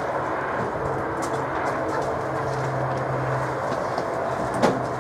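Steam tank locomotive moving slowly with steam hissing from around its wheels, over a steady low hum. One sharp clank comes near the end.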